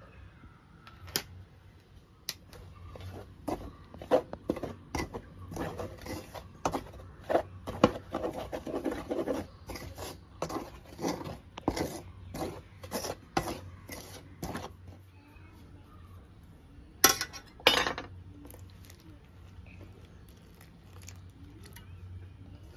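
Kitchen utensils clinking and scraping against dishes: a run of irregular knocks and clinks, then after a short pause two louder clatters.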